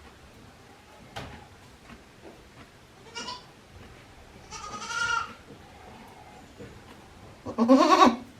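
Goats bleating three times: a short call about three seconds in, a longer, higher-pitched call about five seconds in, and the loudest call, lower and wavering, near the end.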